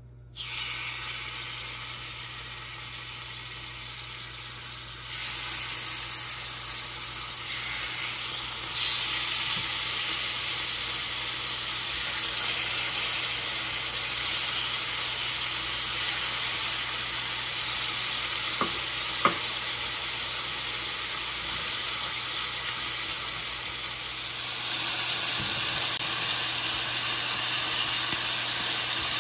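Thin-sliced beef brisket in a soy-sauce marinade sizzling as it is stir-fried in hot oil in a frying pan over high heat. The steady sizzle grows louder in steps about 5 and 9 seconds in, with two faint clicks a little past the middle.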